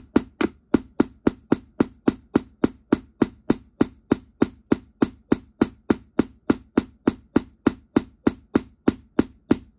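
Metal hammer repeatedly striking a metal eyelet-setting punch, about three even blows a second, each with a short ring, clinching a three-piece metal eyelet through fabric. The blows stop abruptly just before the end.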